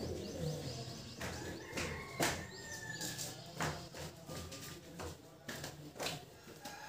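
Scattered sharp clicks and knocks, about seven of them, from hands working on the parts of an angle grinder during a switch repair, over a low steady hum, with short high chirps between them.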